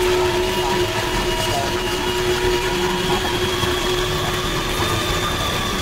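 Dense, steady droning noise with several sustained tones held over it, an experimental noise-and-feedback drone.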